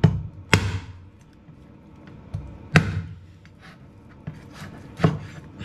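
A Black Dragon butcher cleaver chops through bony meat on a plastic cutting board. There are four hard chops, two close together at the start, one near the middle and one near the end, with lighter knocks between.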